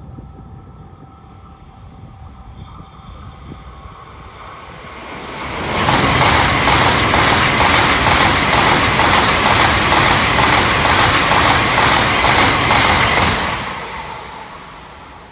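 A Tokaido Shinkansen bullet train passes through the station at speed without stopping. Its rushing noise builds over a few seconds, stays loud and steady for about eight seconds, then fades near the end.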